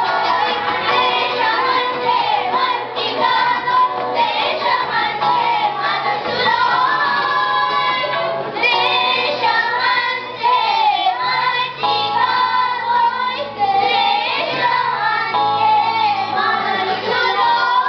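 Group of children singing a song together into microphones, over steady low accompaniment notes that change every second or two.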